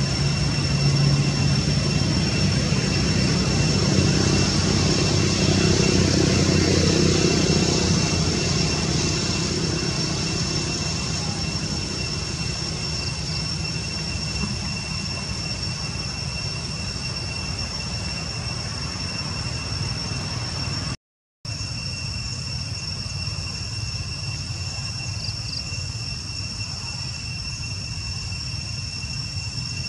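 A low engine rumble, loudest in the first seconds and slowly fading away, over a steady high-pitched drone and hiss; the sound drops out completely for a moment about two-thirds of the way through.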